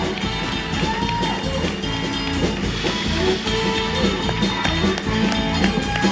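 Live rock-and-roll band playing: electric guitar over a drum kit, amplified through the stage PA.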